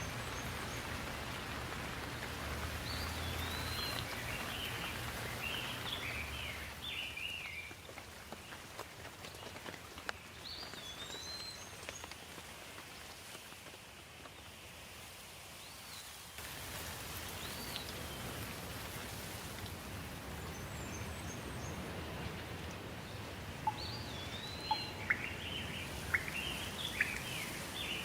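Steady rain falling, with a bird calling in short groups of chirps several times. A few sharp ticks come near the end.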